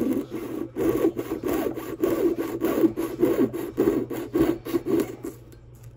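Jeweler's saw with a small blade cutting through copper wire held in a wooden bench pin: quick back-and-forth strokes, about two to three a second, stopping near the end.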